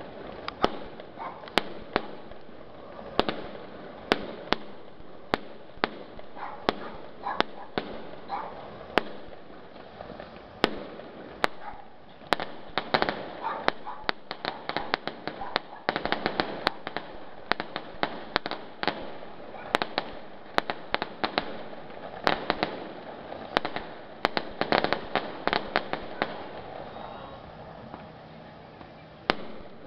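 Aerial fireworks going off in a steady string of sharp bangs, about one or two a second. The bangs thicken into quick runs of crackling about halfway through and again later.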